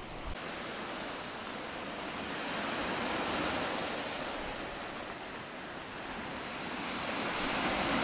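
Sea surf washing onto a sandy beach, a steady rush that swells gently about three seconds in and again near the end.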